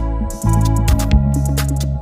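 Background music: an electronic track with a heavy bass line, held notes and a regular drum-machine beat.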